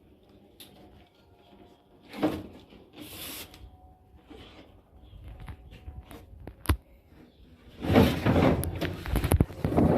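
Handling noises: scattered knocks and scrapes, one sharp click about two-thirds of the way in, then a stretch of louder clattering and rubbing near the end.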